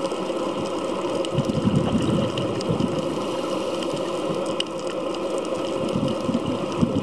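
Underwater ambience on a coral reef: a steady mechanical drone with faint scattered clicks, and surges of bubbling from a scuba diver's exhalation about a second and a half in and again near the end.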